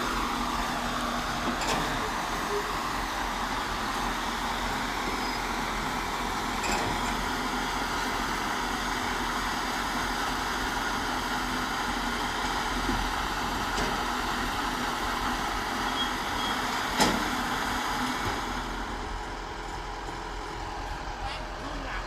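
Kubota DC-105 combine harvester's diesel engine running steadily, with a single sharp knock about seventeen seconds in; the sound drops a little in level over the last few seconds.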